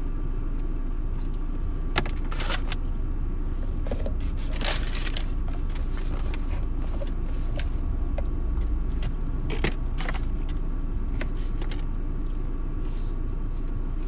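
Steady low rumble inside a car cabin. Over it come scattered sharp clicks and rustles of hands handling food and its container, the loudest about two seconds in and near ten seconds.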